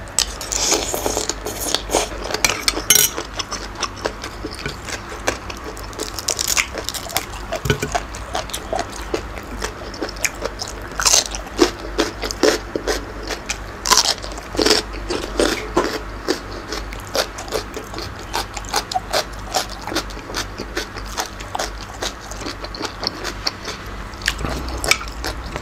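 Crunching and chewing of a mouthful of spicy green papaya salad (som tam) with squid: many sharp crackly bites follow one another throughout.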